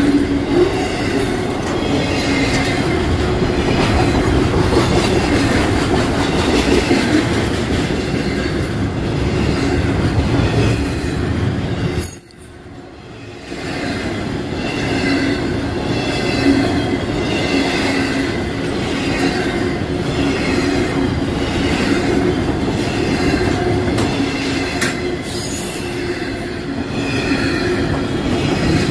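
Union Pacific intermodal freight train of trailers on flatcars rolling past close by: a steady loud rumble and clatter of steel wheels on rail, with a wavering high squeal from the wheels. About twelve seconds in the sound drops away abruptly and then swells back.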